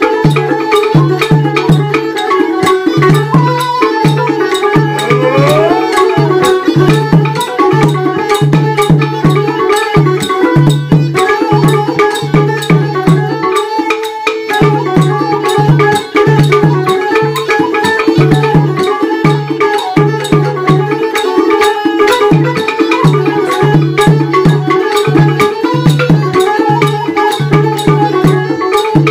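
Batak Toba uning-uningan folk ensemble playing an instrumental piece. A side-blown bamboo sulim flute carries the melody with some sliding notes, a hasapi lute plucks along, and drums beat a fast, even pattern of low pitched strokes on two pitches, with a short break in the drumming about halfway through.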